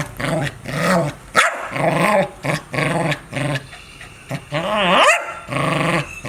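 A dog barking in a rapid series of short, loud barks, with one longer, rising bark about five seconds in.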